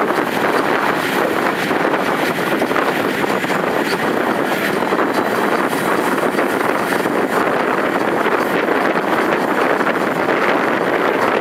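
Steady rushing noise from an open window of a moving steam-hauled train: wind on the microphone mixed with the train's running noise, with no clear beat or tone.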